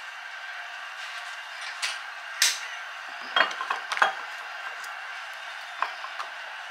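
Condiment bottles being picked up and set down on a stone countertop: a handful of short clinks and knocks, the loudest about two and a half seconds in, over a steady background hiss.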